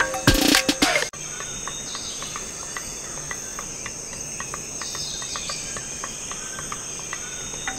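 Music with a beat cuts off suddenly about a second in. It leaves a steady, high-pitched chirring of insects with a few faint light clicks.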